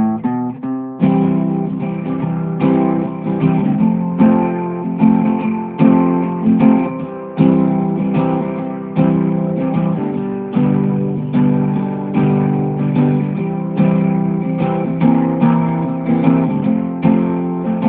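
Intro theme music played on guitar: a quick run of plucked notes, then chords strummed in a steady rhythm.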